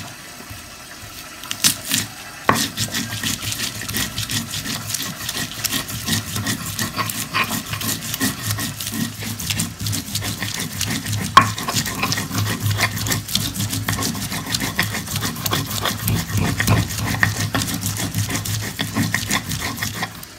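Continuous scraping and knocking of a utensil working sambal ingredients (pineapple, shallots, red chillies and shrimp paste) against a bowl, with a few sharper knocks, about two and a half seconds in and again about eleven seconds in.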